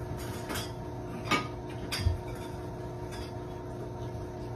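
A few short, light clinks and knocks of small metal pet food bowls being set down and handled, over a steady faint hum.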